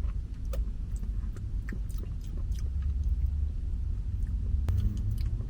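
Close-miked eating sounds: scattered small clicks and taps of a spoon against food and container, with soft chewing, over a steady low rumble.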